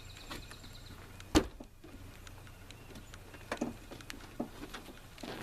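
Scattered light clicks and knocks from handling parts, with one sharp, loud knock about a second and a half in.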